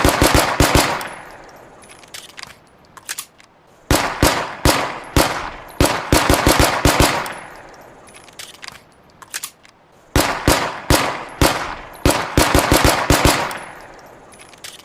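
Walther PPK pistol shots as a sound effect, fired in quick strings of several shots a second, each shot trailing off in an echo. The strings come about every three to six seconds, with a few lighter clicks in the gaps between them.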